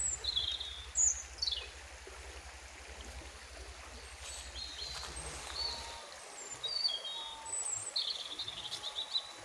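Small birds chirping and giving short whistles, some sliding downward, in several scattered bursts over the steady rush of a fast-flowing river.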